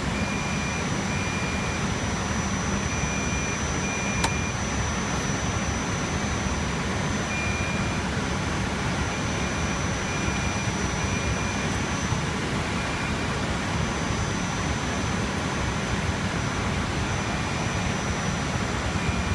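Steady rushing fan noise of running rack-mounted servers, with a thin high whine throughout. A single sharp click about four seconds in.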